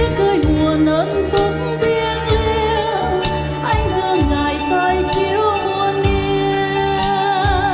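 Music: a choral hymn with instrumental accompaniment, held notes wavering with vibrato over a steady low beat.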